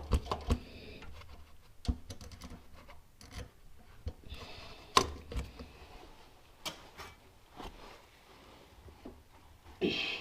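Hand tools and metal parts being handled: scattered clicks, taps and light scrapes at irregular moments, a few of them sharper knocks.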